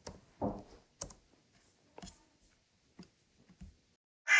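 Faint keyboard and mouse clicks, a few sparse taps in a quiet room. Right at the end a crow's caw from the played-back sound file begins.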